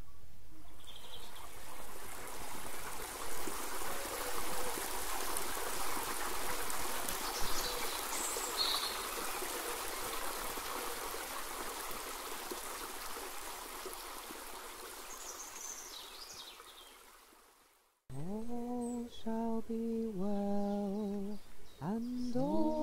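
Flowing water, a steady rushing stream, slowly fading away to silence about eighteen seconds in. A woman's voice then starts singing slow, held notes, unaccompanied.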